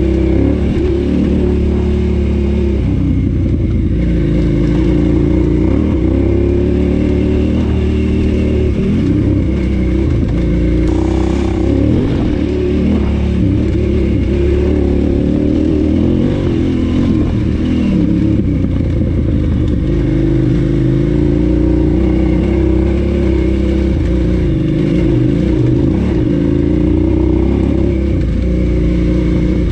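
KTM 990 Adventure S's 999 cc V-twin engine running under way, its note rising and falling again and again with the throttle.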